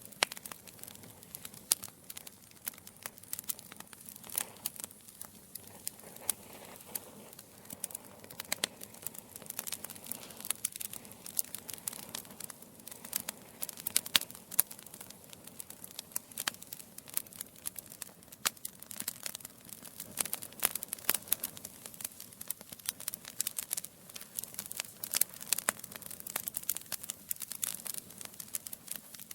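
Wood fire in a fireplace crackling, with many sharp irregular pops and snaps from the burning logs over a faint steady hiss.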